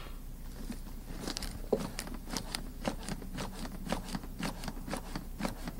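Chest compressions on a CPR training manikin: a steady, rapid run of clicks and knocks from the manikin's chest, starting about a second in.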